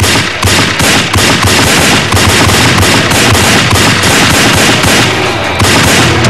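Rapid handgun fire from two guns, one of them a revolver: a long, unbroken volley of shots at about four to five a second.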